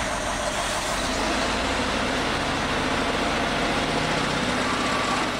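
Heavy truck engine running steadily, mixed with a dense rushing noise.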